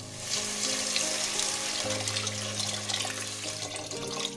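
Water pouring into a pot of rice, moong dal and fried onions, a steady splashing rush that stops about four seconds in. Background music plays under it.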